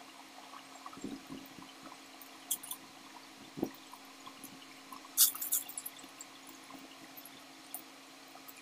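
Wet mouth sounds of lansones being eaten and peeled by hand: scattered soft wet clicks and smacks, with a sharper crackle about five seconds in.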